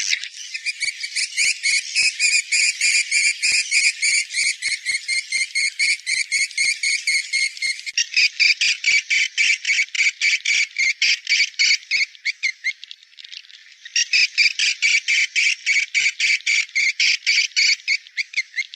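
Edible-nest swiftlet calls from a swiftlet-house lure recording (an 'SP' call sound), which is played to draw swiftlets in to roost. Rapid, shrill chirps repeat several times a second, with a short lull about two thirds of the way through.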